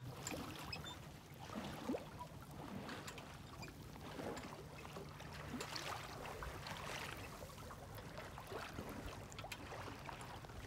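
Water swishing and splashing irregularly along the hull of a sailboat under way, over a faint steady low hum.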